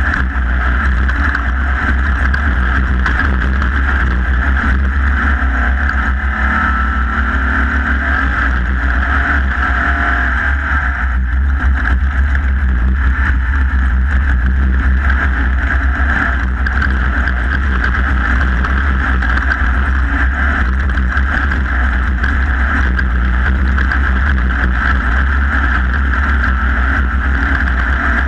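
Off-road race vehicle running at speed, heard from an onboard camera: steady engine and drivetrain noise over heavy low rumble from wind and rough ground.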